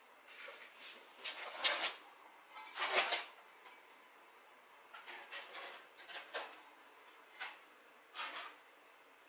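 Crumpled kraft packing paper and paper leaflets rustling and crinkling as they are handled, in irregular bursts, the loudest about three seconds in.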